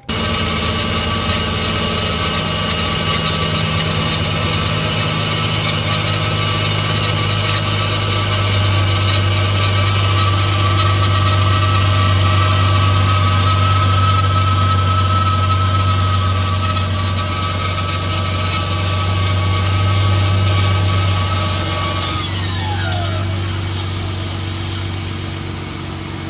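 Mercedes-Benz W212 E300's V6 petrol engine idling after a cold start, with the electric secondary air pump whining steadily on top; the pump's running sound is not normal, which the mechanic puts down to wear from long use. About 22 seconds in, the pump's whine cuts out and winds down, falling in pitch, while the engine keeps idling.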